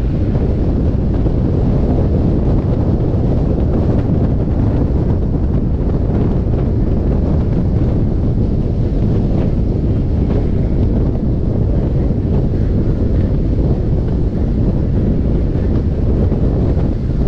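Wind buffeting the microphone of a camera held up in an open car at road speed: a loud, steady rumble without a break.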